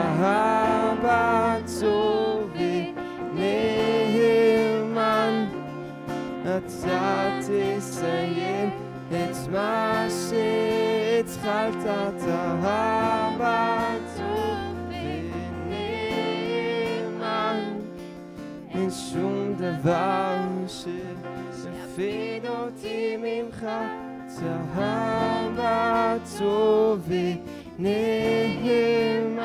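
Live worship music: voices singing a melody over electric and acoustic guitars.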